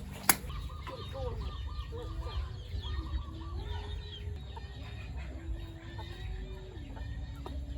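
Chickens clucking, with many short chirps and a quick run of repeated notes, over a steady low hum. A single sharp click about a quarter second in is the loudest sound.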